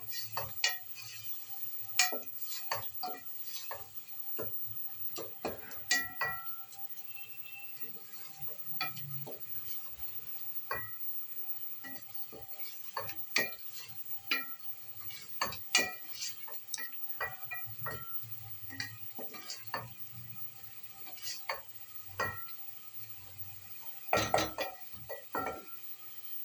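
Wooden spoon stirring masala as it fries in an aluminium pot, scraping and knocking irregularly against the pot's sides and rim so the pot rings briefly after each knock. There is a quick cluster of louder knocks near the end.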